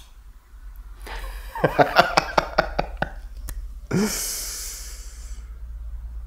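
A man laughing: a run of quick ha-ha pulses, then about four seconds in a long, breathy sighing exhale.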